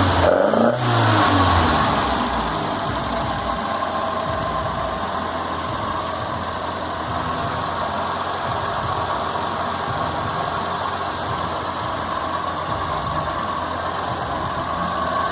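Toyota 18R-G twin-cam inline-four engine of a 1981 Celica RA40, revved briefly at the start and then settling to a steady idle.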